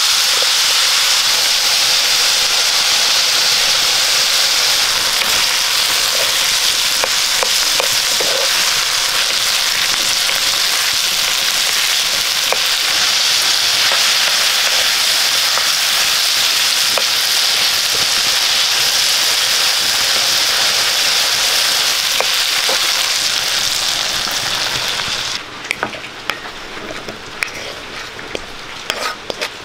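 Whole shallots sizzling in hot ghee in a metal pan, stirred with a wooden spoon. About 25 seconds in the sizzle drops away, and the shallots are tipped and scraped from the pan into a wooden bowl with a run of light clattering knocks.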